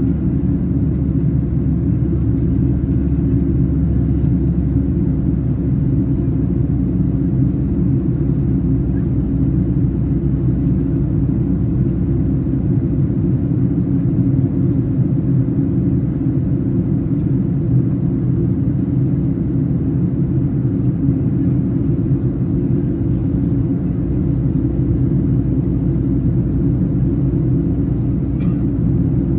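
Steady low rumble inside the cabin of a Boeing 737-800 in flight, from its CFM56-7B jet engines and the air rushing past the fuselage, heard from a window seat by the wing.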